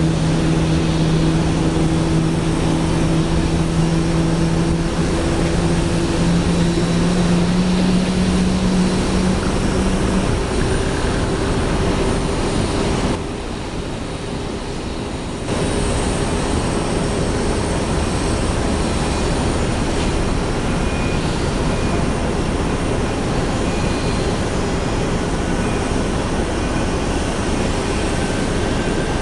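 Steady jet whine and rumble from an Airbus A320neo airliner during pushback. A low steady hum underneath stops about ten seconds in, and the whole sound is briefly quieter for about two seconds around the middle.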